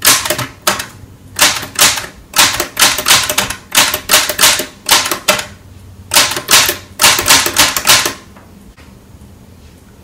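Typewriter keys striking the paper in rapid clacks, about four a second, in two runs: a longer one of about five seconds, then after a short pause a second of about two seconds, after which the typing stops.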